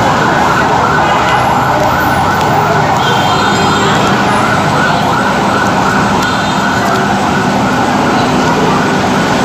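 A loud, steady warbling electronic tone, rising and falling about three times a second like a siren, over a steady background din.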